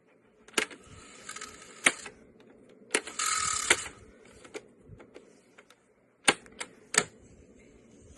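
Tandberg TCD 310 MkII cassette deck's transport mechanism: a series of sharp clicks as its controls engage and release, with a short whir after the first click and a louder whir lasting under a second about three seconds in.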